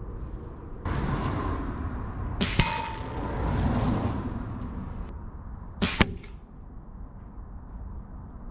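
.22 air rifle shots: two sharp cracks, about two and a half and six seconds in, the first followed by a short metallic ring. A rushing noise swells under the first half.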